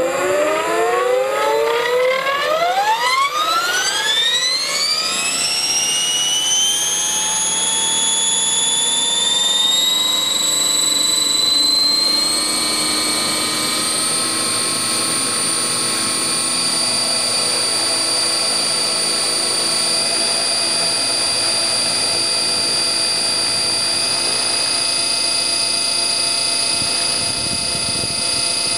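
Align T-Rex 600 ESP electric RC helicopter spooling up: the whine of its motor, gears and rotor climbs steeply in pitch for about ten seconds, then holds steady at flying speed.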